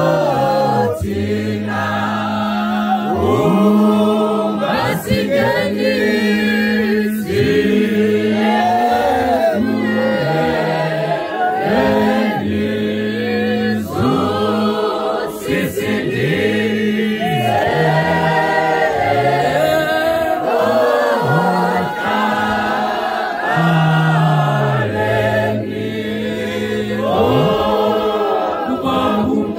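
A choir of men's voices singing a hymn in harmony, with low voices holding long notes beneath the tune.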